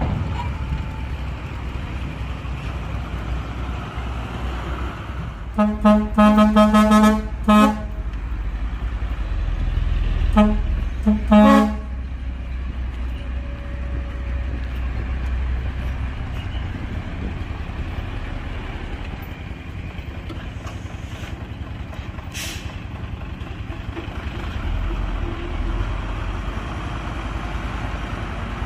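Heavy dump truck's diesel engine running steadily, with a string of short truck-horn blasts about six to eight seconds in and two more near eleven seconds.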